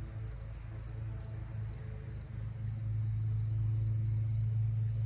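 Crickets chirping in an even rhythm, about two chirps a second, over a steady low hum.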